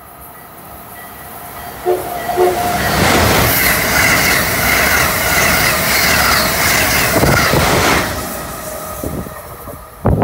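Amtrak electric passenger train sounding two short horn toots about two seconds in, then rushing through the station at speed, loud for about five seconds before fading away.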